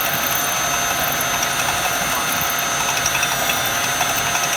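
1996 Jaguar XJ6's straight-six engine idling steadily with a metallic noise the owner cannot place, likening it to a bearing.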